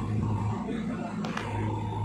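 JCB backhoe loader's diesel engine running steadily as it works the earth, with a short knock a little over a second in.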